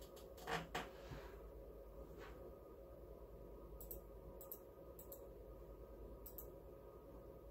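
Quiet room tone with a steady low hum. There are two soft clicks about half a second in, a few fainter ticks later, and no speech.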